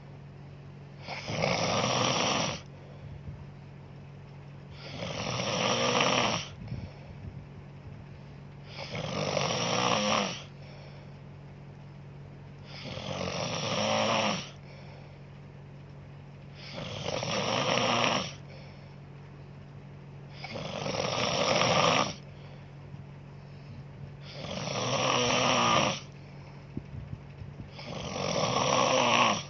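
A person snoring in sleep: about eight snores roughly every four seconds, each building over a second or so and breaking off sharply, over a steady low hum.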